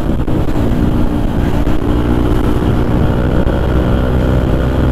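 Motorcycle engine running steadily at road speed, heard from the rider's own bike, over a low wind rumble.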